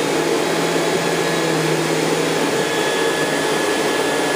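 Vacuum cleaner running steadily: a constant drone with a faint high whine over it.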